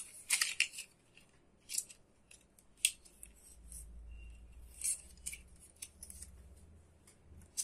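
Irregular light metallic clicks and ticks from small metal tweezers being picked up and worked against the wires of a 775 DC motor's armature.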